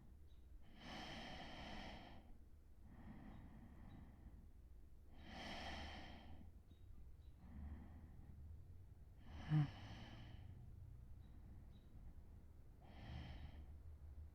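A drowsy man's slow, deep breathing close to the microphone, with a breath every two seconds or so, louder and softer in turn. About halfway through comes a brief snort, the loudest sound.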